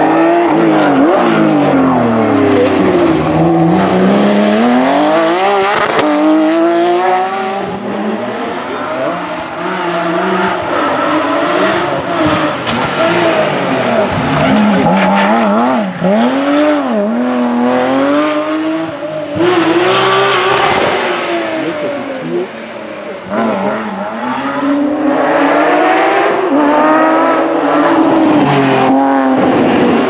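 Porsche 911 GT3 rally cars' flat-six engines revving hard, the pitch climbing and dropping again and again through upshifts and braking downshifts as several cars pass in turn.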